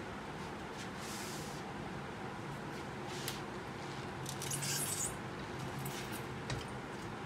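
Faint handling sounds as a small battery is held and moved on a glass table: two brief rustles, the louder one in the second half, and a light click a little after three seconds.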